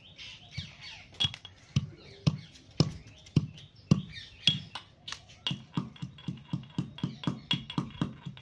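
Steel pestle pounding garlic in a small steel mortar: sharp metal knocks, about two a second at first, then quicker and lighter at about three a second from about five seconds in.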